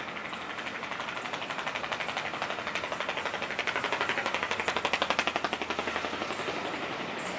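Passenger coaches rolling slowly along the platform, with a fast, even mechanical pulsing that swells to its loudest about halfway through and then eases.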